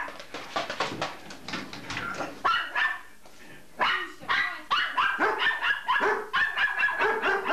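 German shepherd barking repeatedly in quick short barks. There is a brief pause about three seconds in, then an even run of about three barks a second.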